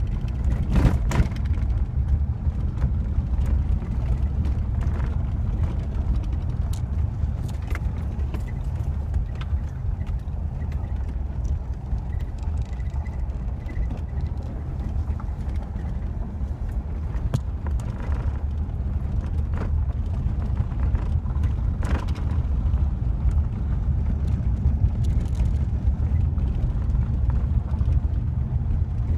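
Car driving slowly on a gravel road, heard from inside the cabin: a steady low rumble from the engine and tyres, with scattered sharp clicks and knocks.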